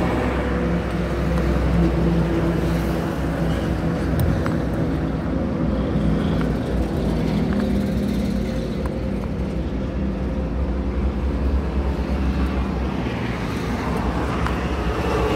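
Steady background engine noise: a low rumble with a faint even hum.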